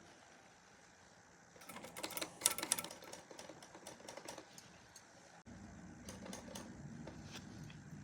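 Vintage typewriter keys being pressed: a quick flurry of clicks about a second and a half in, then scattered single key clicks. The keys are not going all the way down because a small bar is blocking them.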